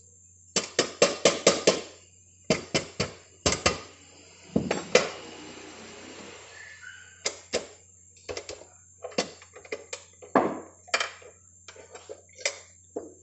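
Metal hand tools knocking and clinking against a motorcycle engine's crankcase in quick runs of sharp taps with short pauses between, and a brief scraping stretch midway.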